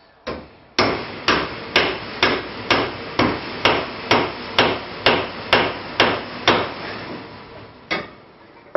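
Claw hammer blows, about fourteen sharp strikes at a steady two a second, each with a short ring. After a pause, one last strike near the end.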